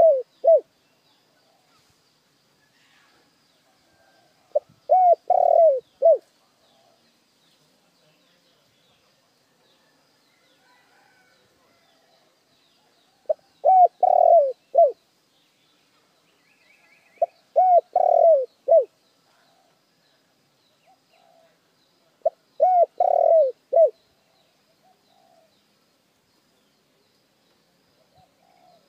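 Spotted dove cooing: four full phrases of three or four falling coos each, spaced several seconds apart, with the tail of another phrase right at the start. It is a decoy dove's call of the kind used to lure wild doves.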